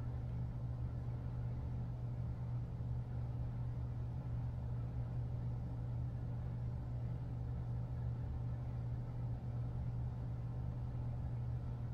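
A steady low hum with no other distinct sound.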